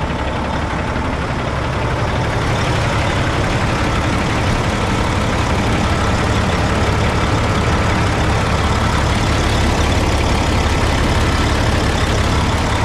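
Diesel engine of a 2004 Mack CL733 heavy truck idling steadily, heard close at the open engine bay. It gets a little louder about two seconds in.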